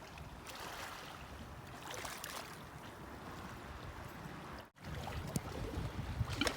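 Sea waves washing onto a beach, with wind rumbling on the microphone. The sound cuts out for an instant a little past halfway, then comes back with more wind rumble.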